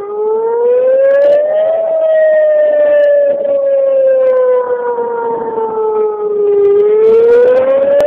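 Whelen 2905 outdoor warning siren sounding its wail tone: one loud, steady tone that climbs for about a second and a half, sinks slowly for about five seconds, then starts climbing again near the end.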